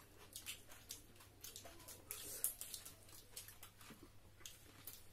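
Faint eating sounds from a meal eaten by hand: fingers working rice on plates and mouths chewing, an irregular patter of small soft clicks and smacks, one louder smack about halfway through.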